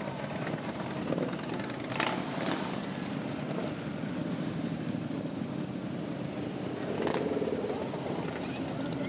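A procession of motorcycles, mostly cruisers, riding past slowly, many engines running together in a steady drone, with a brief sharp sound about two seconds in and another about seven seconds in.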